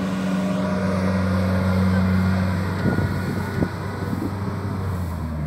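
Rice combine harvester's engine running with a steady drone, which drops away about two and a half seconds in, followed by a few knocks and clatter.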